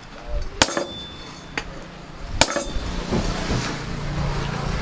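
Hammer striking steel three times, about a second apart, the first blow leaving a short metallic ring.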